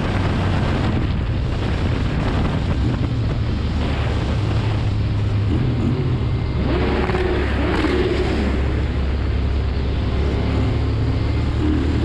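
Motorcycle engine running at a steady cruising speed, with wind noise over the microphone, inside a road tunnel. About seven seconds in the engine pitch briefly rises and falls.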